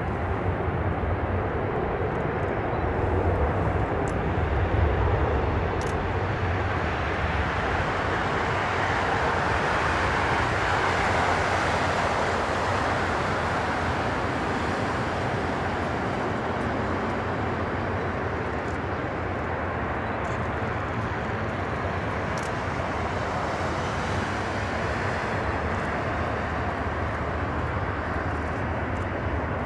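Boeing 777-200ER's twin Rolls-Royce Trent jet engines running steadily as the airliner taxis past: a low rumble under a broad rush of engine noise that swells a little around the middle.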